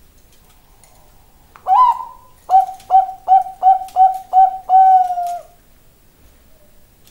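Bangkok-bred zebra dove (perkutut) cooing. One opening note is followed by a quick run of seven short staccato coos at a steady pitch, about two and a half a second, and the last coo is drawn out.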